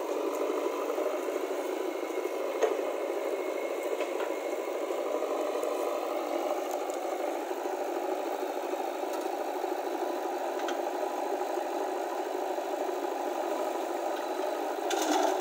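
A motor running steadily with a rattle, and a few short clicks.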